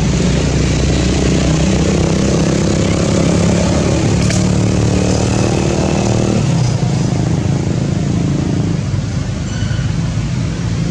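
A motor vehicle engine running steadily with a low hum over traffic noise. Its upper tones drop out about six seconds in, and the hum fades out by about nine seconds.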